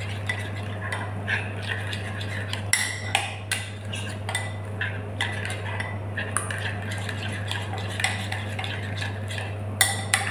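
Metal spoon stirring a thick, oily marinade in a glass bowl, with irregular scraping and clinking of the spoon against the glass.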